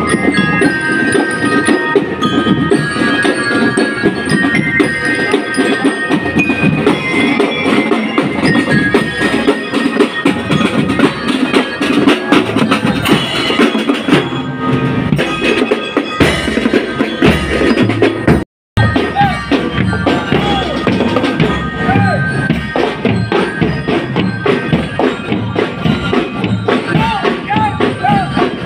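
Drum and lyre corps playing on the march: bell lyres carry the melody over snare drums, bass drums and crash cymbals. The sound cuts out for an instant about two-thirds of the way through.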